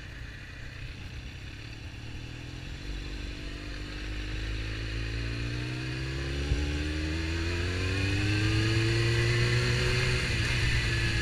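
Suzuki GSX-R750 inline-four engine pulling away through the gears. It is quiet at first, then climbs steadily in pitch and loudness over several seconds and eases off slightly near the end.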